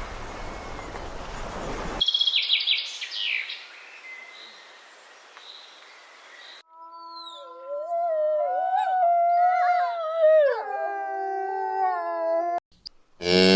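A string of separate animal calls: goose honking at first, then short high bird chirps, then a long wavering dog howl that rises and falls in pitch for about six seconds. A cow's loud low moo starts near the end.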